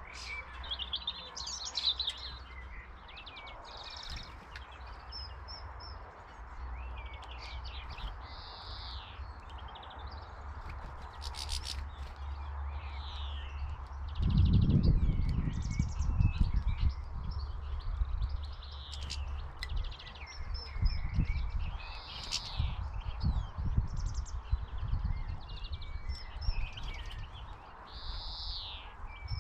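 Small songbirds chirping and calling, with many short, high calls overlapping throughout. From about halfway, an irregular low rumbling noise comes and goes under the calls.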